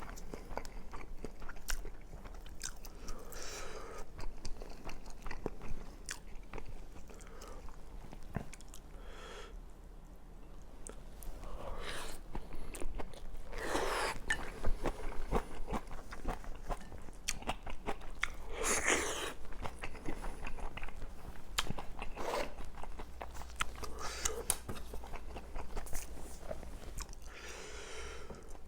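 Close-miked chewing and biting of braised pork kimchi and rice: a steady run of wet mouth clicks and smacks, with a few louder bites.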